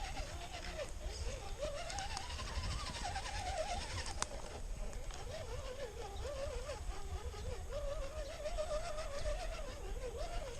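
RC scale crawler's electric motor and drivetrain whining, its pitch wandering up and down as the throttle and load change, over a low rumble.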